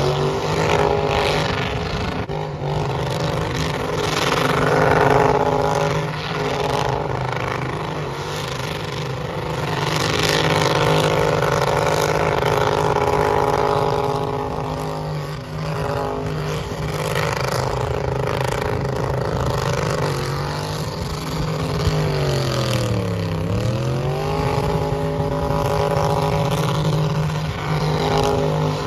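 Car engine held at high revs through a tyre-smoking burnout. About two-thirds of the way through the revs drop sharply and climb straight back, and they fall off again near the end.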